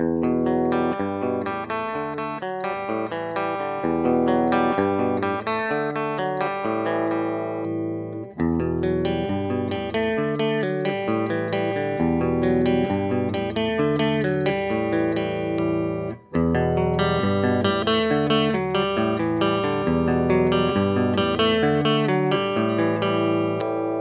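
History (Made in Japan) Les Paul-style electric guitar with its stock pickups, played through an amp. A similar passage is played in three takes, broken by short pauses about 8 and 16 seconds in. The pickup selector is on the middle position for the second take and the neck pickup for the third.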